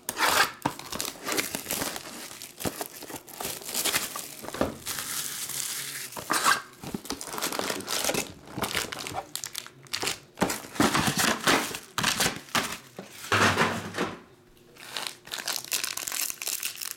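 Plastic shrink-wrap crinkling and tearing as it is stripped off a trading-card hobby box, then foil card packs rustling as they are handled. There is a brief quieter moment about fourteen seconds in.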